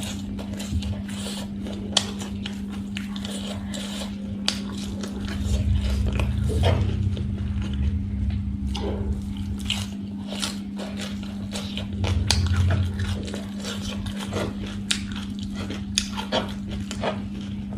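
Close-miked eating: crisp crunching and wet chewing of raw shredded-vegetable salad (singju), with many small mouth clicks and crackles, over a steady low hum. Two stretches of low rumble come about five seconds in and about twelve seconds in.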